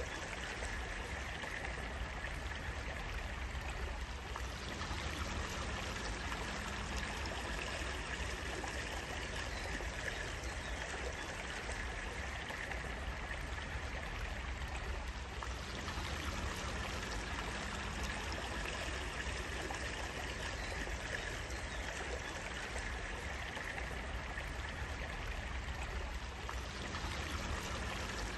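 Stream water running and trickling steadily, with no breaks or changes in level.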